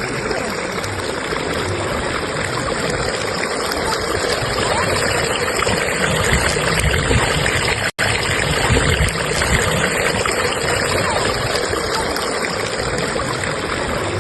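Fast-flowing stream current rushing and babbling steadily. It drops out for an instant about eight seconds in.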